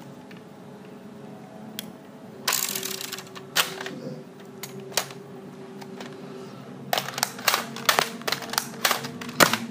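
Plastic clicks and clacks of a toy foam-dart blaster with a revolving drum being handled and worked: a few single clacks, then a quick run of clicks, about three or four a second, over the last few seconds.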